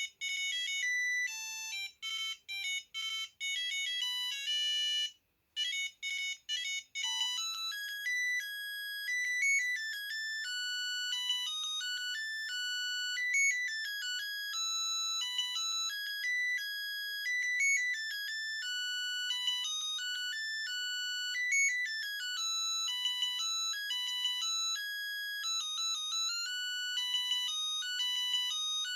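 Samsung SGH-A300 mobile phone playing ringtones as high electronic beeping melodies. A tune of short, separate notes breaks off about five seconds in. After a brief gap, a new, faster melody starts up and plays on without pause.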